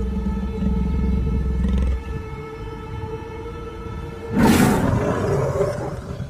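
A cat's long, steady, low threat yowl while it faces off with a terrier. About four seconds in comes a sudden loud burst of hissing.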